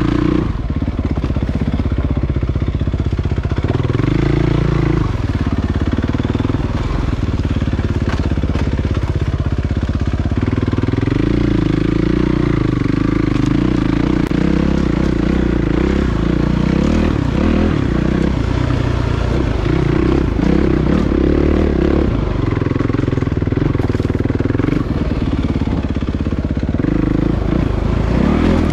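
Suzuki RMX450Z dirt bike's single-cylinder four-stroke engine running under load on a trail ride, its note rising and falling again and again with the throttle.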